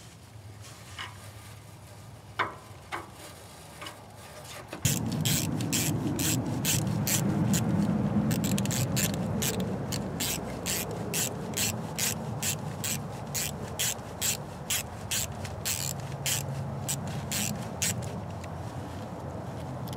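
A few light metal taps and clicks, then from about five seconds in a hand ratchet working an exhaust clamp: a steady rasping with sharp ratchet strokes about three a second.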